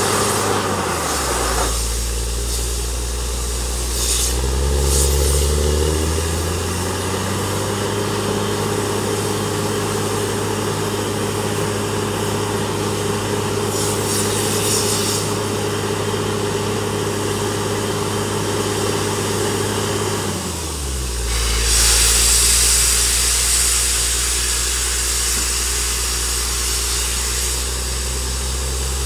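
Engine of a truck-mounted borewell drilling rig running steadily. Its speed drops about a second in, climbs back up over a few seconds and holds, then drops again about twenty seconds in, followed by a brief burst of hissing.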